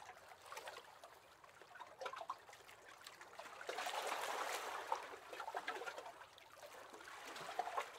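Small waves lapping and splashing against the hull of a wooden rowing boat, swelling louder about four seconds in.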